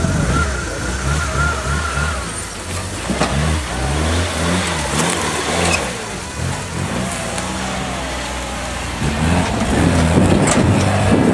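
Off-road 4x4 pickup engine revving hard and unevenly under load while climbing, its pitch rising and falling with the throttle, with a few sharp cracks over it.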